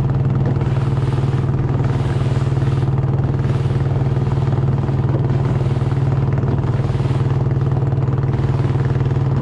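Longtail boat engine running steadily at speed: a loud, even low hum with no change in pitch.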